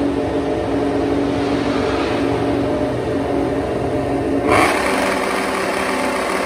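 MotoGP race motorcycle engine running at steady revs, a held engine note without revving up or down. About four and a half seconds in, a sudden louder, hissier rush joins it.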